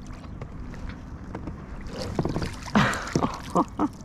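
Water sloshing against a kayak during a fish fight. From about halfway there are knocks and a louder splash, then a few short pitched blips near the end.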